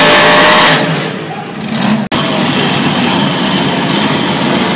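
A pulling tractor's engine running at full throttle down the track, its sound falling away about a second in. After a sudden break, a steadier mix of crowd murmur with engines in the distance.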